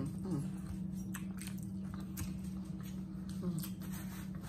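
Chewing and small mouth clicks of people eating fried catfish by hand, over a steady low hum.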